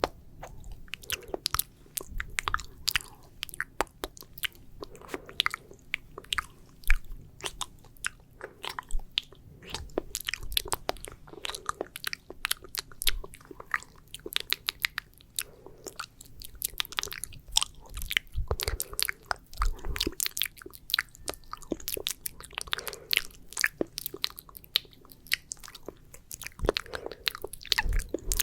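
Close-miked wet, sticky ASMR mouth sounds for spit painting: rapid, dense clicks and smacks of tongue and saliva, coming in clusters about every two seconds.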